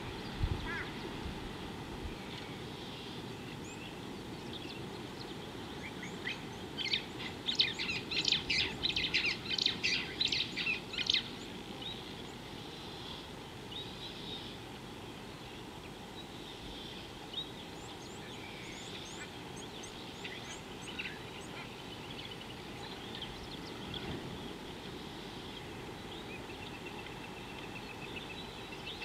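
Wild birds calling: a loud run of rapid, chattering calls about seven seconds in that lasts some four seconds, with scattered faint chirps before and after over a steady outdoor hiss.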